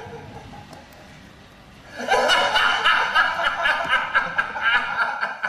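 A man laughing loudly and at length in quick repeated ha-ha's, starting about two seconds in after a quiet opening.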